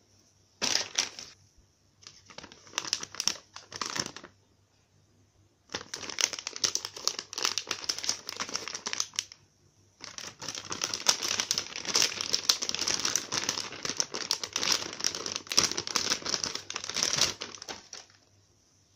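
Clear plastic packaging bag crinkling as it is handled and opened to free a squishy toy, in four bursts with short pauses, the last and longest running about eight seconds.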